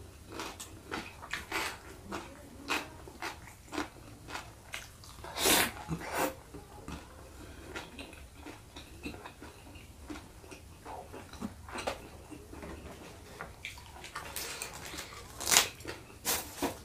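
Close-miked eating: wet chewing and lip smacking on a mouthful of spicy tambusu and rice, with irregular small clicks and one louder noise about five seconds in.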